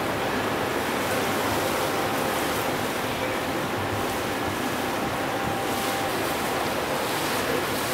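Steady rushing of water in a river lock chamber, with a faint steady hum underneath.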